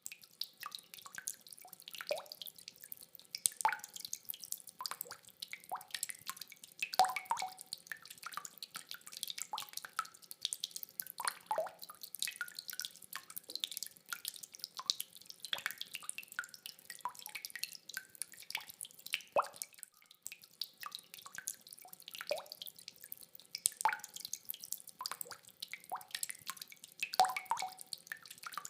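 Rainwater dripping in irregular drops, several a second, some ringing briefly at a pitch.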